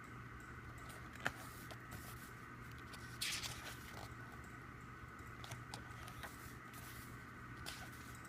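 Faint handling of an album's paper and card contents: a sharp click about a second in, a short rustle around three seconds in, and scattered light ticks over a steady low hum.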